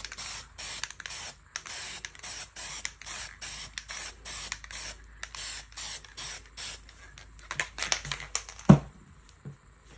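Aerosol spray paint can hissing in short, quick bursts, two or three a second. Near the end the spraying stops; there are a few sharp clicks and one loud knock.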